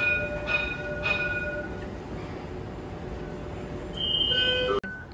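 Electronic door-signal chime at a tram station: three ringing notes in quick succession. About four seconds in comes a steady beep lasting under a second, which cuts off suddenly. A steady hum of the station and the standing tram runs underneath.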